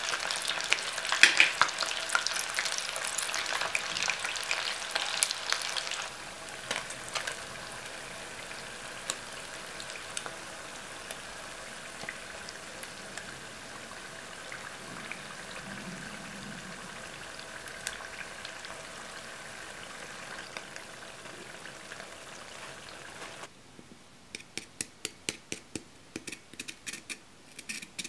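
Small whole fish deep-frying in hot oil in a metal pot: a busy, crackling sizzle with clicks of chopsticks stirring, easing after about six seconds into a steadier, quieter sizzle. Near the end the frying stops and a quick run of sharp clicks follows as chopsticks work at a fried fish on a ceramic plate.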